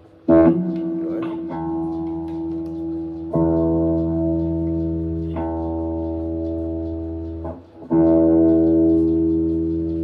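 Les Paul-style electric guitar through an amplifier: the same chord is struck about five times and left to ring. It is played on the neck pickup while its tone knob is turned to change how bright or dark it sounds.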